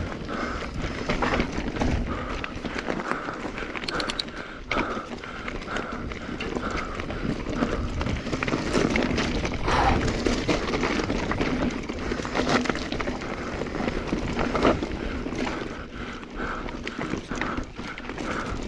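Mountain bike riding over a loose, rocky dirt trail: tyres crunching on gravel with constant clatter and knocks from the bike, and a steady rhythmic pulsing through it.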